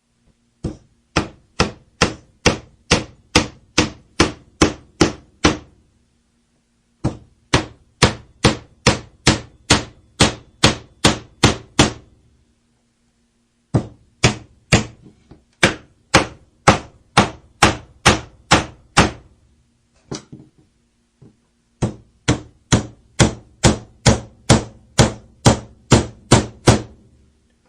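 Hammer blows in four runs of about a dozen evenly spaced strikes, two to three a second, with short pauses between the runs and a faint ring under each run.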